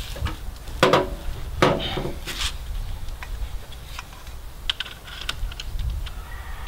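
A bolt-action rifle being lifted and set onto a tripod's ball-head clamp (Sunwayfoto IB-40): a few sharp knocks and scrapes of the gun and gear in the first two seconds or so, then a quick run of small clicks about four to five seconds in as the rifle's rail is seated in the Arca clamp.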